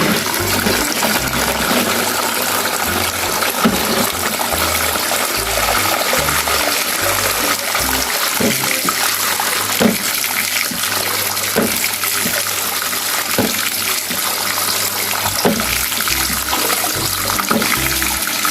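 Steady running water splashing over a plastic toy sand truck as it is rinsed clean, with a few light knocks of the plastic. Background music with a pulsing bass runs underneath.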